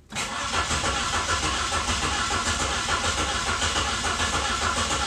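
Saturn SL2's 1.9-litre four-cylinder engine cranking over on the starter with the fuel injectors disabled, so it turns over without firing. One cylinder sounds as if it isn't contributing like the rest; a relative compression test shows that cylinder low, though the mechanic suspects a failing cheap starter dropping out at a dead spot on its commutator.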